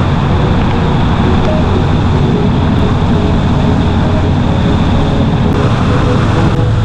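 2018 Harley-Davidson Road King Special's V-twin engine running steadily with the bike under way, a loud, even rush of road and wind noise over it.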